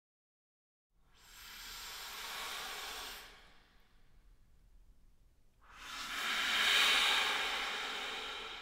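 Two long swells of breathy, unpitched air noise: the first lasts about two seconds and dies away, the second starts about two seconds later, louder, peaks and slowly fades.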